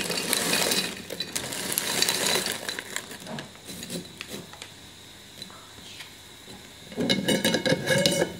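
Dried apple cubes poured from a plastic bag into a glass jar, the pieces clicking against the glass amid bag rustling, then scattered clicks as pieces are shifted by hand. About seven seconds in, louder clicking and handling as the jar's metal lid goes on.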